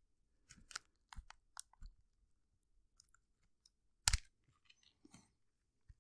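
Faint plastic clicks and knocks from handling the Philips S9000 shaver as its trimmer attachment is fitted, with a sharper click about four seconds in. The shaver's motor is not running.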